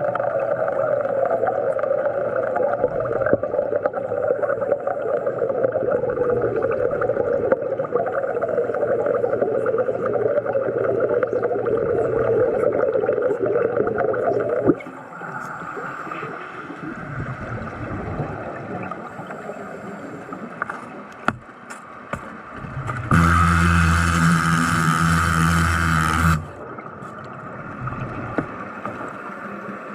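Underwater bubbling and gurgling: a loud, steady rush of bubbles that stops suddenly about halfway, then quieter gurgling with a few clicks, and a loud buzz of about three seconds near the end.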